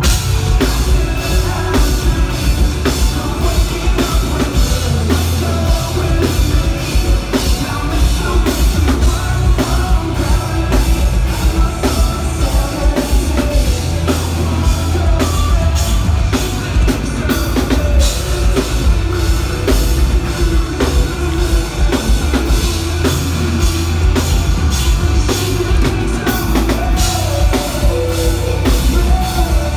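Rock band playing live through a venue PA: a full drum kit driving a steady beat under a heavy bass low end, loud throughout. The full band comes in right at the start.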